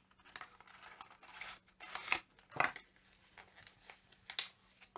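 Packaging of a small eyebrow-pencil box being handled and opened: scattered clicks and rustles, the sharpest about two and a half seconds in and again near the end.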